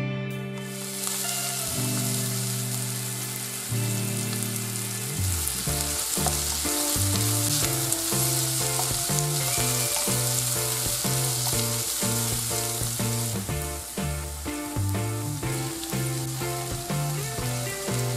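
Chopped onion, tomato and green chilli sizzling in hot oil in a non-stick pan as a spatula stirs them; the sizzle starts about half a second in and thins a little about two-thirds through. Background music plays underneath.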